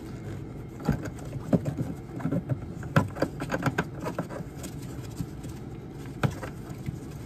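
Plastic water-line coupling being threaded by hand onto the plastic water inlet of a Thetford Aqua Magic IV RV toilet: scattered small clicks, taps and scrapes from a rubber-gloved hand working the fitting, over a low steady background hum.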